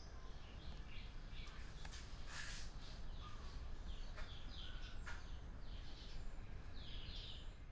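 Small birds chirping in short repeated calls over a low steady background rumble, with a brief hiss about two and a half seconds in and a few faint clicks.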